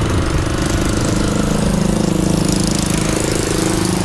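Moped engine running steadily while the moped is ridden over gravel, its pitch lifting slightly around the middle.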